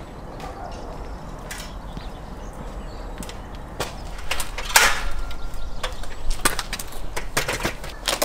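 Aluminium folding ladder being handled and stood up, clanking: a scattered series of sharp knocks and clicks starting about four seconds in, the loudest just before five seconds.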